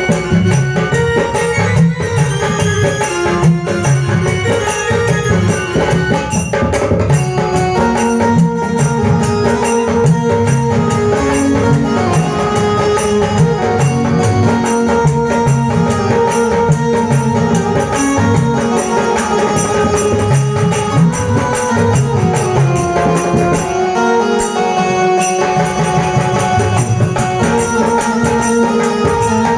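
Music with a steady, dense percussion beat under a held melody line; the low beat drops out briefly about 24 seconds in.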